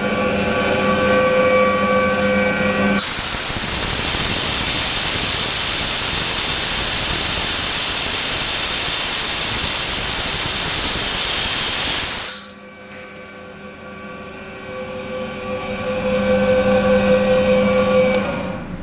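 Ingersoll Rand rotary screw air compressor running with a steady whine. About three seconds in, a loud rush of compressed air venting takes over for around nine seconds and cuts off suddenly. The compressor's whine then comes back, softer at first and stronger again before dropping near the end.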